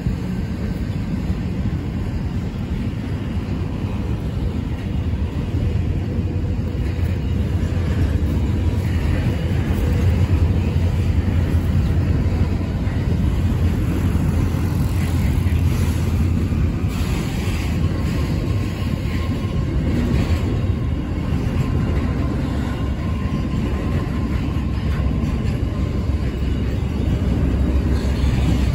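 Intermodal freight wagons loaded with containers rolling past on the rails: a loud, steady rumble of wheels on track.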